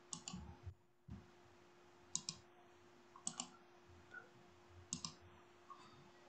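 Four sharp double clicks, one or two seconds apart, over a faint steady hum.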